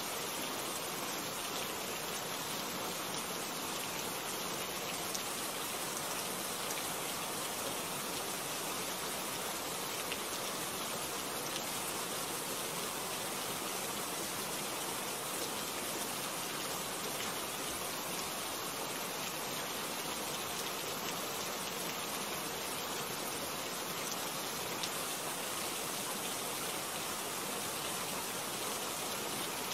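Steady rain falling: an even, unbroken hiss of many drops, with no thunder or other events.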